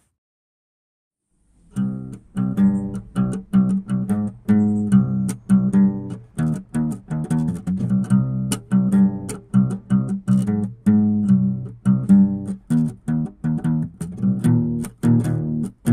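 Instrumental music on plucked guitar, a quick run of picked notes over a bass line, starting after a second and a half of silence.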